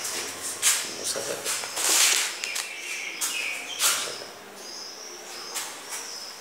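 High-pitched insect chirping in short, repeated phrases, with several brief, louder bursts of noise in the first four seconds.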